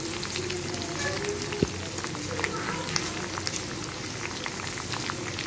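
Sliced onions with dals, peanuts, chillies and curry leaves frying in hot oil in a kadai: a steady sizzle scattered with small crackles and pops. There is one sharp knock about a second and a half in.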